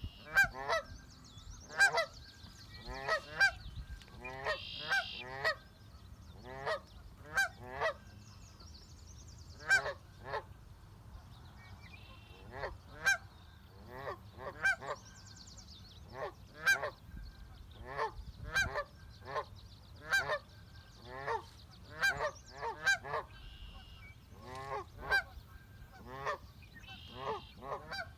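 Geese honking repeatedly, short calls coming one or two a second and sometimes overlapping, with a few higher, fainter bird calls among them.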